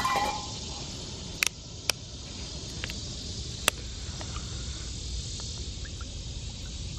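A few sharp clicks and taps as a frying pan is settled on a wire campfire grill and a plastic bottle of cooking oil is opened and tipped into it, over a steady background of insects.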